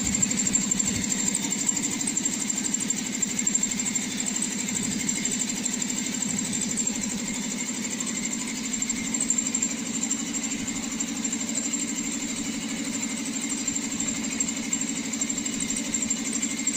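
5 hp ELGi twin-cylinder V-type borewell compressor pump, driven by an electric motor, running steadily with a rapid, even pulsing and a thin high whine above it.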